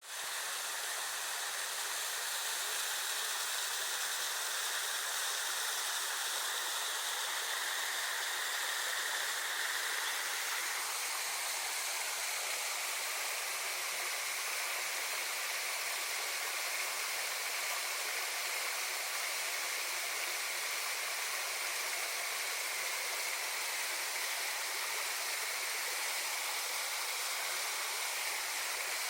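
Small waterfall pouring and splashing steadily, a constant hissing rush of water with little low rumble.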